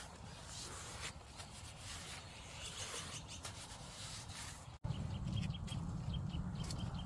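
Wet cement mortar being scooped and rubbed onto a brick firebox, giving irregular soft scraping sounds. About two-thirds of the way through it cuts to a steady low rumble of a wood fire burning in the stove, with a bird chirping repeatedly.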